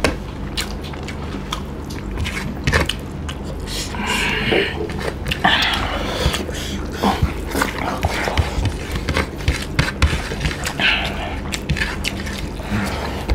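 Close-up eating sounds: chewing and mouth clicks as rice, egg and chicken are eaten by hand, with frequent sharp clicks and smacks from fingers working the food on the plates. A steady low hum runs underneath.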